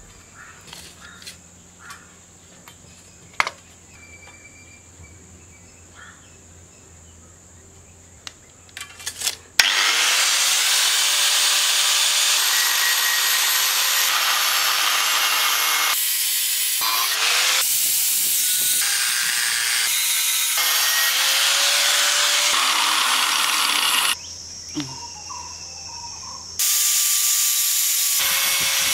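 A few light knocks and clicks over a steady hum, then an angle grinder with a thin cutting disc spins up with a rising whine and cuts through steel pipe and threaded steel rod. It runs loud and steady, drops away briefly a little before the end, and spins up again to cut.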